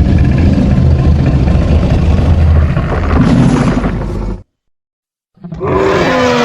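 Fictional monster vocalization mixed from animal and dinosaur sound effects: a long, deep, rough growling roar that cuts off suddenly about four seconds in. After a second of silence a new roar starts, its pitch gliding downward.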